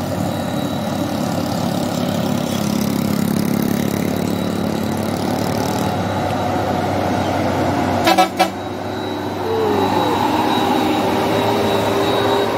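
Mitsubishi Fuso Fighter truck's diesel engine pulling up a dirt slope and passing close by. About eight seconds in there are a few sharp knocks, and a steady tone sounds near the end.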